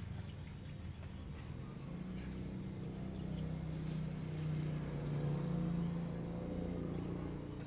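A steady low engine hum comes in about two seconds in, grows louder through the middle and eases off near the end, with faint bird chirps behind it.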